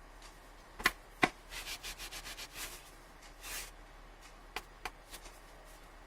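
Hands handling a phone box and its contents: two sharp taps about a second in, a run of short rubbing and scraping noises, a brief swish, then two lighter taps near the end.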